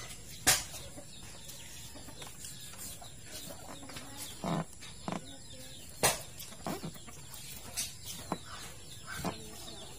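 Chickens clucking now and then in short calls, with two sharp clicks, one about half a second in and one about six seconds in.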